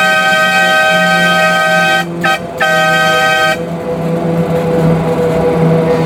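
A scale diesel locomotive's horn sounds a chord of several notes: one long blast, a brief toot, then another blast that stops about three and a half seconds in. After it, the locomotive's engine runs with a steady hum as the train rolls on.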